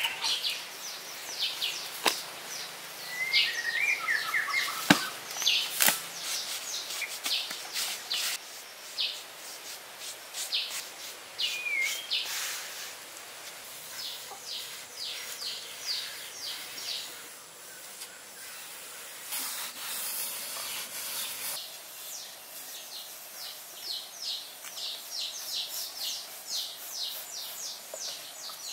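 Wild birds chirping and calling, over short scraping and tapping sounds from hands working wet cement. Near the end comes a quick run of short strokes, about three a second.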